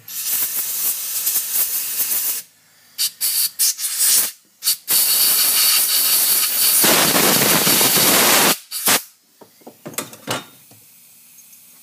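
Compressed air hissing in blasts, blowing metal shavings off a thread-repair tap: a blast of about two seconds, several short spurts, then a longer blast of about four seconds and one last short puff.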